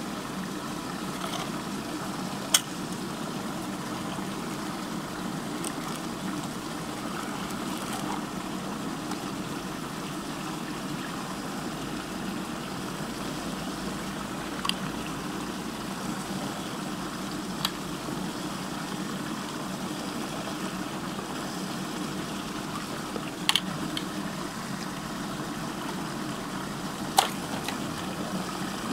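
Water rushing round a deep whirlpool vortex, a steady churning noise with a steady hum beneath it. A few sharp clicks stand out, the first a couple of seconds in and the rest in the second half.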